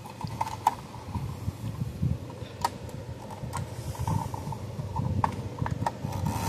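Scattered light clicks and taps of small parts being handled as a crimped spade connector is pushed and worked onto a terminal on a fence energizer's circuit board, the connector not seating fully. A low rumble runs underneath.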